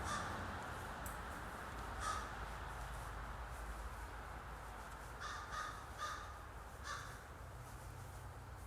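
Faint, short bird calls, caw-like, heard about six times: once at the start, once about two seconds in, then a quick cluster between five and seven seconds, over a low steady hum.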